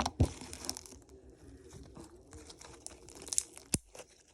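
Slime being kneaded and mixed by hand, squishing with crackling clicks and pops. There is a burst of crackle at the start and two sharper pops near the end.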